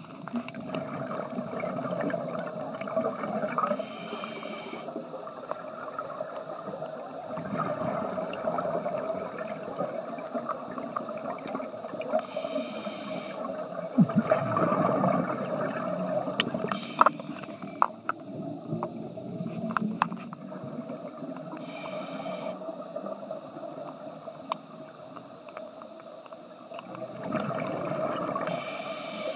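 Scuba regulator breathing heard underwater: a hissing inhalation every few seconds, with bubbling, gurgling exhalations in between, over a steady low hum.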